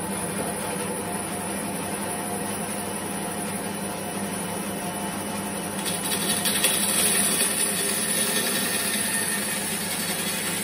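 Bandsaw running, then cutting through the wooden toe of a cricket bat from about six seconds in. The sound grows louder as the blade bites into the wood, removing the bulk of the excess length.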